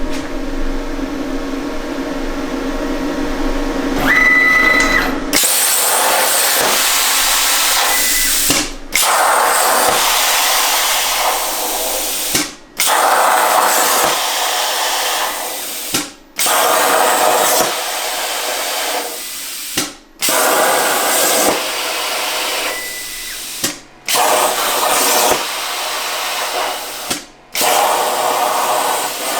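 Plasma cutter torch cutting parts on a CNC plasma table: a loud, steady hiss that starts about five seconds in. It breaks off for a moment roughly every four seconds as the arc stops and restarts between cuts. Before the cutting starts there is a lower hum and a short high tone.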